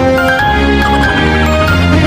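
Background music with held notes over a deep bass line.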